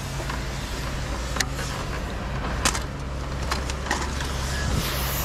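A vehicle engine running steadily, with a few short sharp clicks or knocks scattered through it; the loudest comes about two and a half seconds in.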